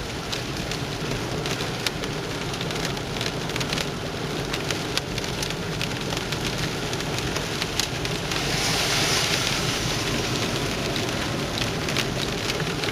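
Heavy rain mixed with hail striking a surface: a steady hiss dotted with many small sharp ticks of hailstones. The hiss swells louder for a couple of seconds a little past the middle.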